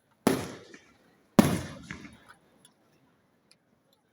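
Two aerial fireworks shells bursting, about a second apart. Each is a sharp bang that dies away over about half a second, with a few faint crackles after the second.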